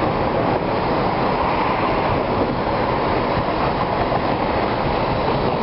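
Steady rushing wind and road noise of a car driving along, heard from inside the car.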